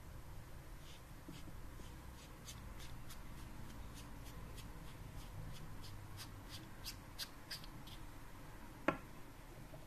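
The threaded aluminium head of a Convoy S2+ flashlight being unscrewed by hand: faint, dry ticks from the threads, several a second, then one sharper click near the end.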